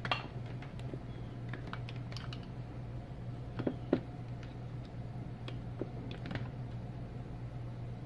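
Scattered light clicks and taps of small plastic parts and a cable being handled on a workbench, over a steady low electrical hum.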